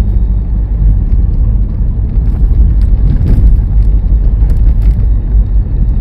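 Steady low rumble of a car driving, heard from inside the cabin: engine and road noise with no sharp events.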